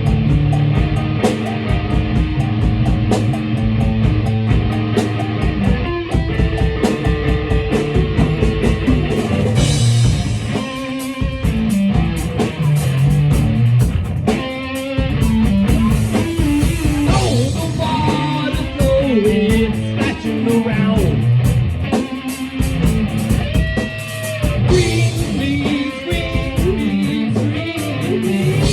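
Rock-style music with guitar and drums and a steady beat.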